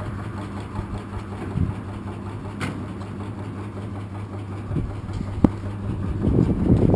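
Kindling-splitting machine's 1 hp electric motor running without load, a steady low hum with a few sharp clicks. A louder, rougher rumble builds near the end.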